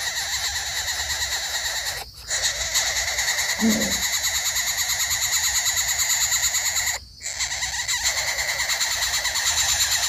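A dense, steady, high-pitched chorus of calling animals, frogs or insects, with a fast flutter. It drops out briefly about two seconds and seven seconds in. Just before four seconds there is one short, low call.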